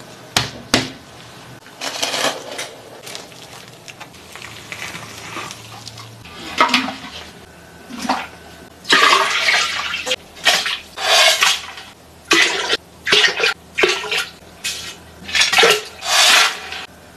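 Kitchen preparation sounds in and around a large stainless-steel stockpot: water and ingredients splashing and clattering into the pot in a run of short bursts, each about a second long, most of them in the second half. Near the end dried chilies and Sichuan peppercorns are tipped in from a bowl.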